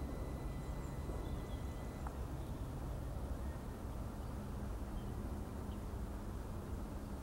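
Steady low rumble and hiss of travelling along a woodland path on a small vehicle, with a thin high whine that stops about two seconds in and a few faint high chirps.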